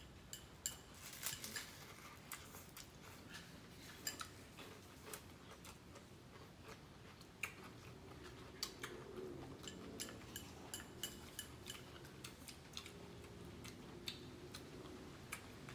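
Faint crunching as crisp shrimp crackers are bitten and chewed, with scattered light clicks of chopsticks against a porcelain rice bowl.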